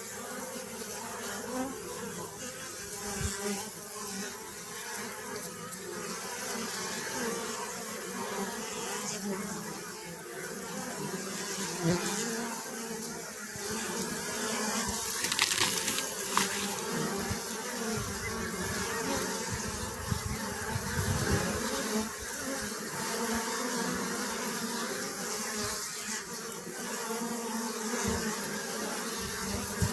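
Bees buzzing in a steady, dense hum, with a few brief clicks about halfway through.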